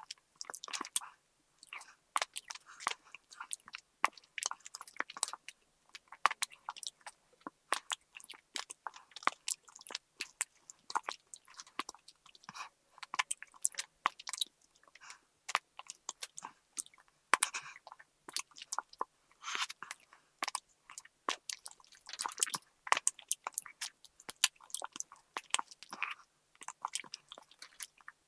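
Close-up biting and chewing of Apollo straw candy: teeth crunching along the thin plastic straws and the sugary filling inside, in a dense run of small crisp crackles and clicks.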